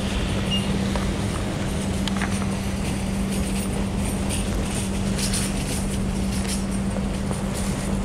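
Steady low hum from a parked KAMAZ-6282 electric bus, over street noise and wind on the microphone, with scattered short crunches like footsteps in snow.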